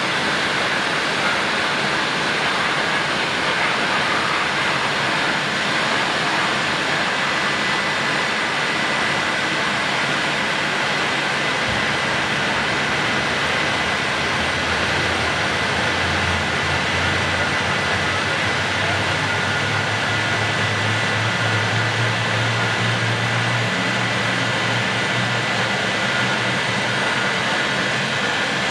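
Airbus A319-132's twin IAE V2500 turbofan engines running at taxi power: a steady rushing hiss with a thin, even whine, and a low drone that swells in the second half.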